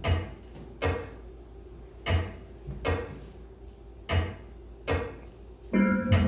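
Clock ticking sound effect opening the routine's music: loud, echoing tick-tock strikes in pairs, each with a low thud under a bright click. Near the end, held musical notes come in.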